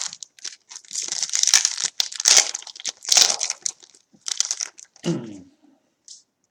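Wrapper of a football trading-card pack crinkling and tearing as it is ripped open, in several rustling bursts over about four seconds.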